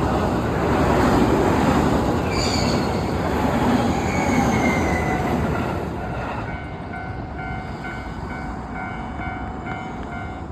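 Train braking to a stop, with a slight odd noise from the brakes: the running noise dies away over about six seconds while thin high squeals glide downward. After that, a steady, faintly pulsing tone sounds as the train stands.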